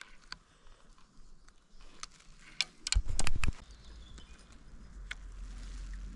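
Spinning reel and rod being handled: light clicks, then a cluster of louder knocks about three seconds in as the line is cast. A low wind rumble on the microphone follows.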